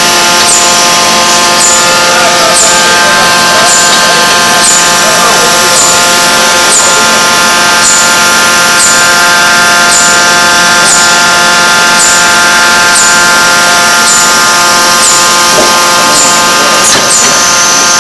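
Electro-resistance heating forging machine running with a loud, steady hum made of several held tones. A faint high chirp repeats about once a second.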